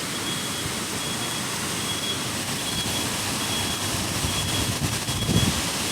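Heavy rain and wind in a storm, a steady, even roar. A faint high-pitched beep repeats at regular intervals underneath.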